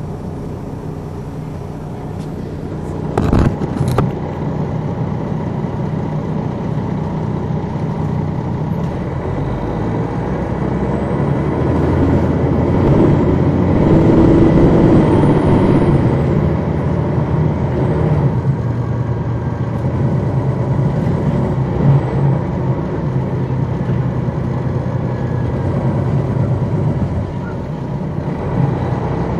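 Detroit Diesel Series 60 engine of an MCI D4000 coach heard from on board, running under way. There are two sharp knocks about three and four seconds in, and then the engine note builds, loudest around the middle, before it settles back to a steady run.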